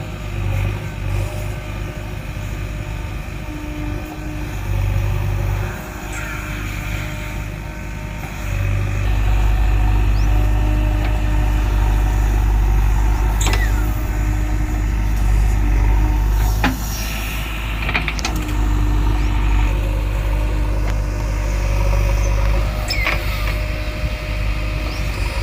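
JCB 3DX backhoe loader's diesel engine running as the machine works, getting louder a third of the way in and dropping back a little past halfway, with a few sharp knocks scattered through.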